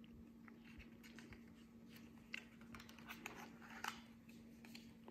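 Near silence, with a few faint, short clicks and rustles of a picture book's paper page being handled and turned.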